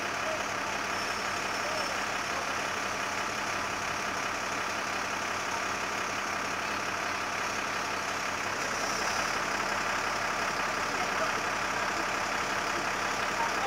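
Diesel engine of a Volvo FL 220 fire brigade aerial ladder truck running steadily at idle while its ladder and basket are raised.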